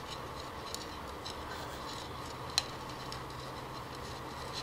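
Quiet room tone: a steady faint hiss and low hum, with a few light ticks and one sharp click about two and a half seconds in.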